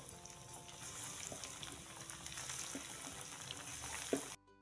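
Tempe slices deep-frying in hot oil in a pan: a steady sizzling hiss full of small crackles. A short knock comes just before the sizzle cuts off suddenly near the end.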